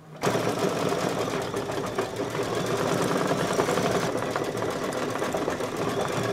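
Brother Luminaire single-needle embroidery machine sewing a satin fill at speed: rapid, steady needle stitching that starts a moment in.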